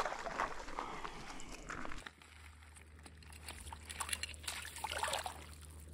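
Rustling for about two seconds, then light splashes and trickling water as a small rainbow trout flops in a landing net held in the shallows.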